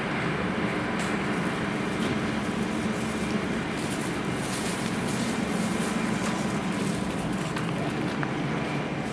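Diesel railcar idling: a steady low engine hum under a broad hiss of outdoor noise.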